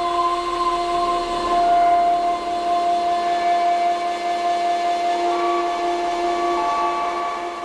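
Ambient electronic dance soundtrack: several long, held drone tones over a rushing, hiss-like noise layer, slowly fading out near the end.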